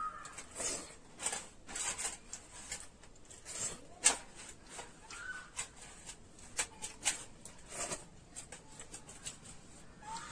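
Close-up eating sounds: irregular wet mouth smacks and chewing as rice and vegetables are eaten by hand, with fingers working the rice on a steel plate. A few faint short squeaks come through, one right at the start, one about five seconds in and one near the end.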